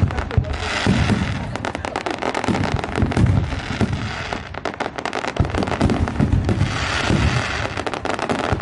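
Fireworks barrage: many shells bursting close together, with dense rapid crackling over repeated deep booms.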